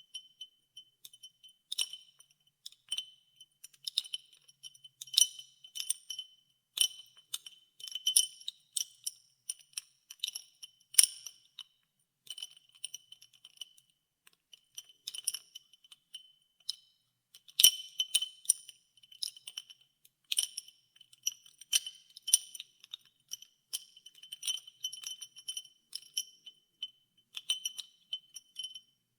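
Ice cubes being stirred in water, clinking irregularly against the vessel with a bright ringing tone, several clinks a second, with a couple of short lulls about halfway through.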